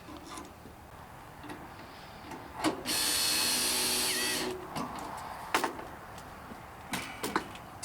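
Power drill running steadily in one burst of about a second and a half, around three seconds in, with scattered clicks and knocks before and after.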